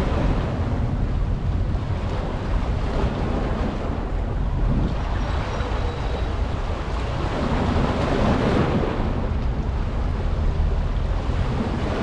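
Steady rush of wind and water, with a low, buffeting wind rumble on the microphone and waves washing.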